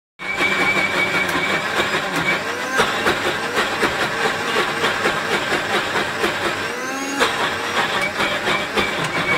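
Prestige mixer grinder's motor running steadily, grinding green chillies in its steel jar.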